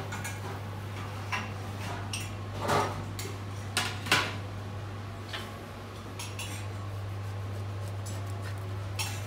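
Stainless steel kitchen tray and utensils clattering as they are handled: scattered knocks and clinks, the loudest two about three and four seconds in. A steady low hum runs under them.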